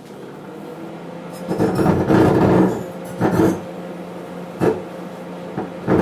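Microwave oven running with a steady electrical hum, while a halved grape arcs into plasma inside. The plasma gives a loud buzzing burst about a second and a half in, then shorter bursts three more times.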